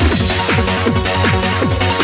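Fast electronic dance music, a happy hardcore track: a four-on-the-floor kick drum pounding about three beats a second over a sustained bass line and bright hi-hats.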